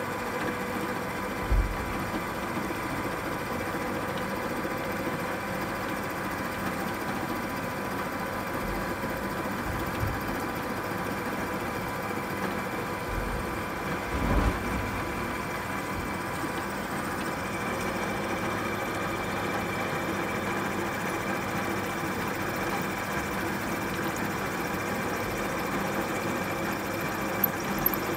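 Pillar drill running steadily, its bit cutting slowly into a forged steel hinge that is hard to drill. A few dull knocks come through, the strongest about a second and a half in and again around fourteen seconds.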